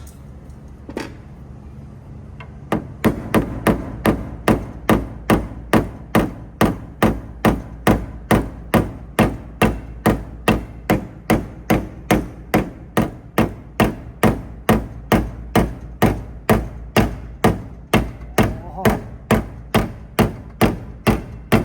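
Steady hammer taps on a car body panel during paintless dent repair, about two strikes a second, starting about three seconds in. A steady low hum runs underneath.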